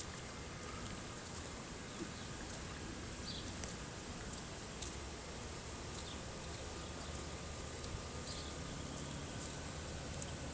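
Steady outdoor hiss with a few short bird chirps, one a few seconds in and another past the middle, and some faint clicks, the sharpest near the end.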